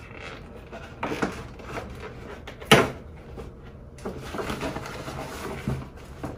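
Stiff paper shopping bag from Dior rustling and crinkling as its ribbon is untied and the bag is pulled open, with one sharp crackle a little under three seconds in and a denser run of rustling as a hand goes into the bag near the end.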